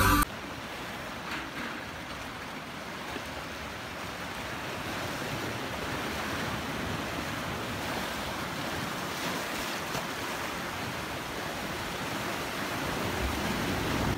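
Sea waves washing over and breaking on a rocky shore: a steady surf hiss that swells gently.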